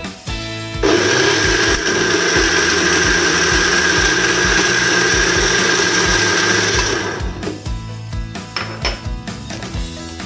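Electric countertop blender switched on about a second in, running steadily for about six seconds as it blends leafy greens, fruit and milk into a smoothie, then winding down.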